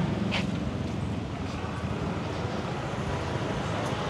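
Outdoor road traffic with a steady rush of noise as a passing vehicle's engine fades away, and a brief high squeak about half a second in.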